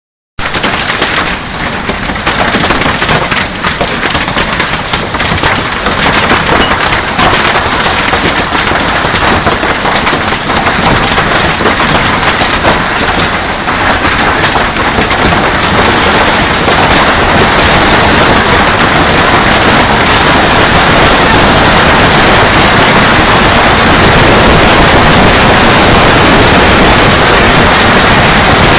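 Heavy rain coming down hard. At first it sounds as a dense crackle of separate drop impacts, and after about fifteen seconds it thickens into a steady, louder downpour.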